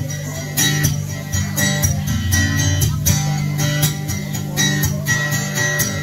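Acoustic guitar strummed in a steady rhythm of chords, with no singing: an instrumental break between sung lines.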